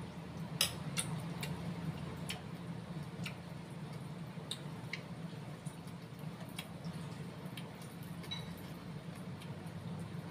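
Metal spoon and fork clicking against a ceramic soup bowl while meatballs are cut up, light irregular clicks about once a second. A steady low hum runs underneath.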